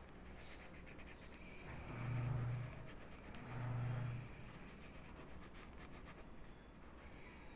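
Graphite pencil scratching faintly on lined spiral-notebook paper while shading, under a steady high-pitched whine. Two brief low hums, about two and three and a half seconds in, are the loudest sounds.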